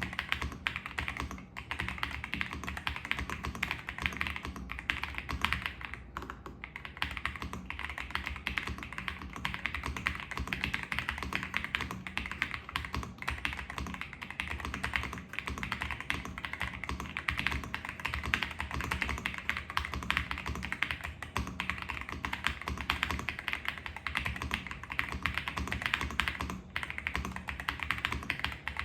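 Continuous typing on a Royal Kludge R65 65% gasket-mount mechanical keyboard: a dense run of key clacks, broken by a few brief pauses, at a moderate loudness.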